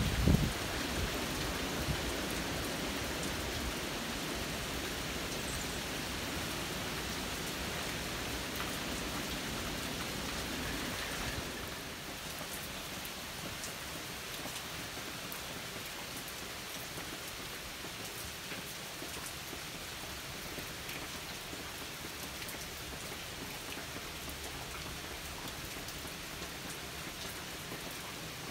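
Steady rain falling, an even hiss with scattered drop ticks. A brief low rumble sits right at the start, and the rain becomes quieter and thinner about twelve seconds in.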